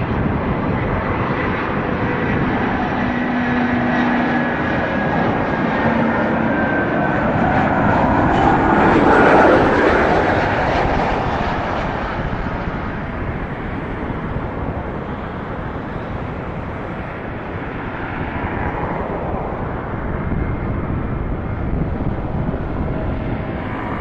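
Boeing 737-300 freighter's CFM56 turbofan engines on landing approach: a jet rumble with a thin fan whine that slides slightly down in pitch. It swells to its loudest as the plane passes about nine to ten seconds in, then eases to a lower, steady rumble as the jet touches down and rolls out.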